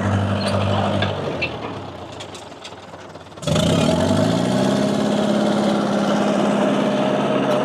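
Dresser TD7E crawler dozer's diesel engine running, fading down for a couple of seconds, then coming back abruptly about halfway through and climbing in pitch to a steady, higher-revving run with a whine over it.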